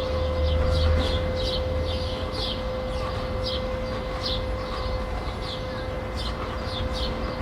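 Residential-street ambience: small birds chirping over and over, a steady hum from a neighbour's vacuum cleaner, and a low rumble of distant traffic that fades after about two seconds.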